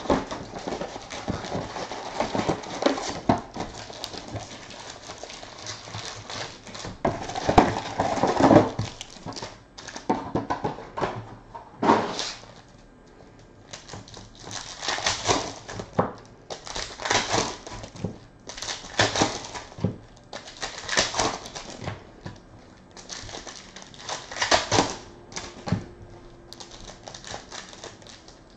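A cardboard trading-card box being opened, then card packs torn open and handled. A run of crinkling, rustling bursts comes about a second or two apart, with small clicks as the cards are handled.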